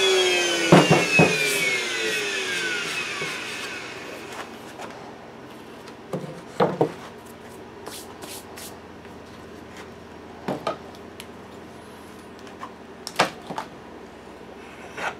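A table-mounted router spinning down after being switched off, its whine falling in pitch and fading over the first few seconds. Then scattered knocks as the melamine board and wooden pieces are lifted and set down on the table.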